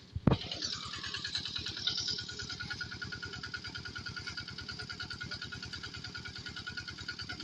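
Small engine of a corn sheller running steadily with a rapid, even chugging and a constant whine above it, after a sharp knock just after the start.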